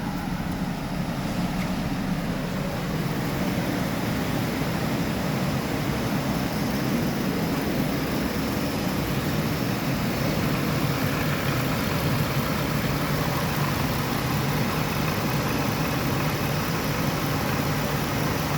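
Jaguar F-Type's supercharged V6 idling steadily with cylinders 5 and 6 misfiring, number 6 continuously.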